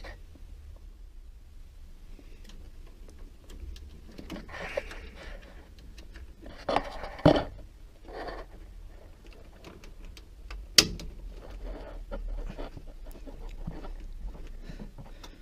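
Plastic wire-harness connectors being handled and pushed into a washer's control circuit board, with two sharp clicks, about seven and eleven seconds in, and close breathing.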